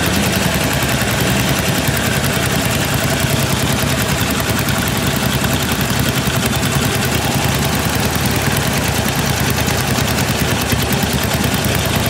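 Motorcycle engine running steadily, with a fast, even beat of exhaust pulses.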